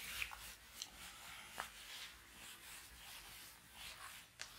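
Whiteboard eraser wiping across a whiteboard in soft, faint rubbing strokes, with a few light ticks.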